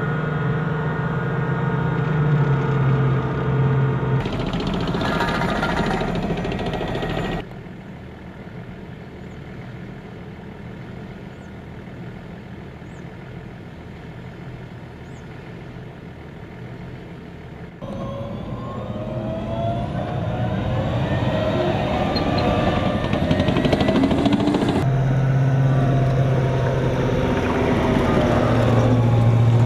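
Tracked armoured vehicles running, in several separate clips that cut abruptly: an M1A2 Abrams tank's gas-turbine engine and tracks, with a whine that rises and falls from a little past halfway, then a Bradley Fighting Vehicle's engine and tracks passing near the end.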